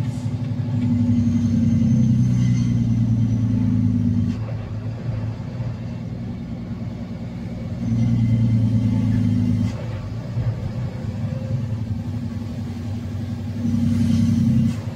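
Diesel engine of a Kenworth semi-truck running, heard from inside the cab while driving, a steady low hum that grows louder three times as the truck pulls under throttle and eases off between.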